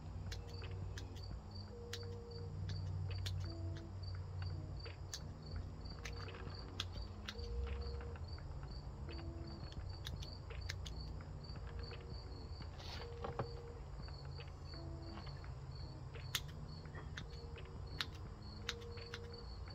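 A cricket chirping steadily, a few chirps a second. Now and then come sharp clicks of hand pruning shears snipping juniper shoots, the loudest about thirteen, sixteen and eighteen seconds in.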